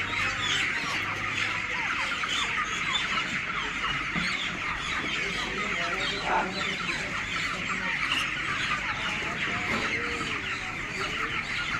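A large flock of broiler chickens peeping and clucking together: a dense, unbroken chorus of many short high calls.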